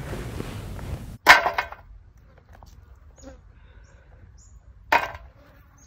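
Charred sticks of homemade charcoal clattering against a metal tin: two short, loud rattles about four seconds apart, after a brief rush of wind noise that cuts off about a second in.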